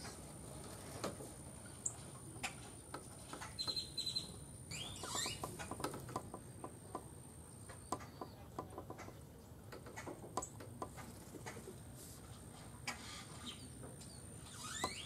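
Scattered light clicks and scratches of a raccoon's claws gripping a wooden post as it climbs and clings. A bird calls about five seconds in and again near the end, over a faint steady high tone.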